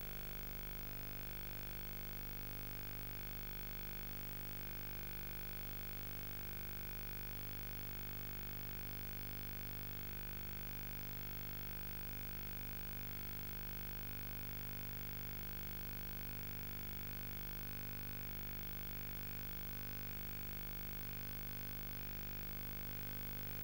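No programme sound: only a steady electrical hum with faint hiss from the tape transfer, strongest at a low pitch and unchanging throughout.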